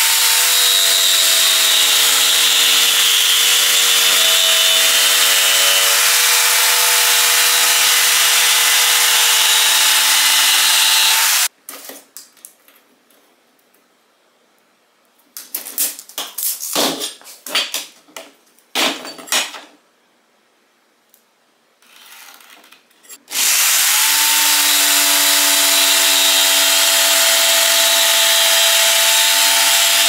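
Corded jigsaw cutting through a pine board: the motor runs steadily for about eleven seconds and stops. A few knocks and clatters follow as the board and saw are handled. About twenty-three seconds in, the saw spins up again for the second cut.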